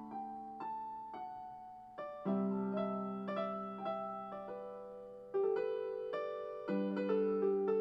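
Solo piano music, slow and soft, with sustained chords struck every second or two and a melody on top.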